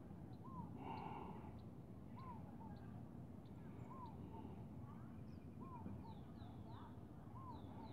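Faint bird calls: one bird repeats a short, clear note that rises and falls, about every one and a half seconds, with higher chirps from other birds among them.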